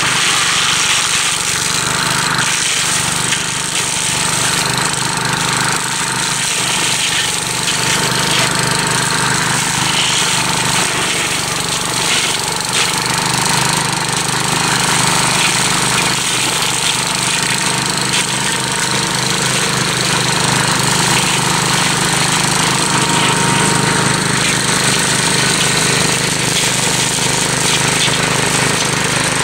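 Gravely Commercial 12 walk-behind tractor's engine running steadily under load while its brush hog mower cuts through thick brush, the engine note holding even without bogging.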